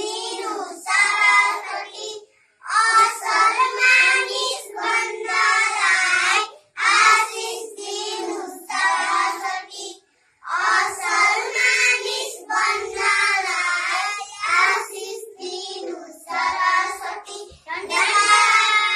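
A group of young children singing a morning prayer together in unison, in phrases broken by brief pauses for breath.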